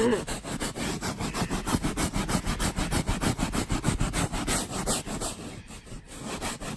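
Brush scrubbing fabric upholstery in quick, rhythmic back-and-forth strokes, working a cleaner into a stain; the strokes grow fainter about five seconds in.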